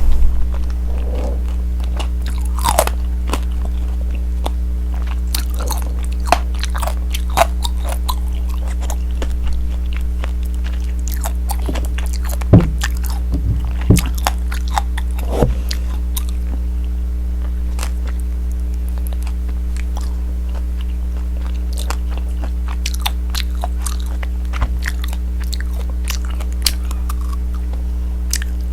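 Crunching bites and chewing of tanghulu: the hard sugar-candy shell on the fruit cracks into many short crisp crackles, with a few louder cracks about halfway through. A steady low hum runs underneath.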